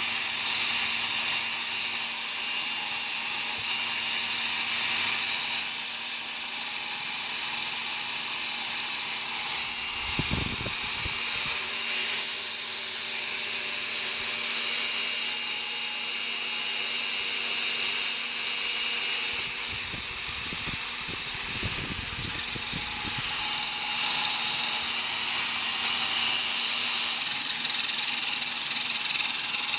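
Electric drill running steadily as the drive of a home-made mini lathe, with a constant high-pitched whine. Brief low rumbles come in about ten seconds in and again around twenty seconds.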